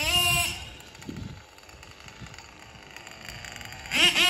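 Small nitro engine of a 1/8-scale RC truggy (Mugen MBX7 with a Nova .28 engine) revving in throttle bursts, a high-pitched whine: a short rising burst at the very start, a quieter stretch, then a loud rising rev about four seconds in that is held high.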